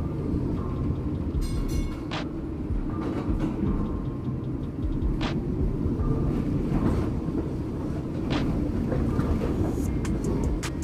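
A 1944 PCC streetcar running along its track, heard from inside the car through an open window: a steady low rumble, with a single sharp click every second or two as the wheels cross rail joints.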